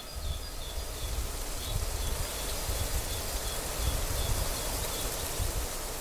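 Wind buffeting the microphone in a gusty, uneven low rumble over a steady outdoor hiss. A faint high chirp repeats about three times a second.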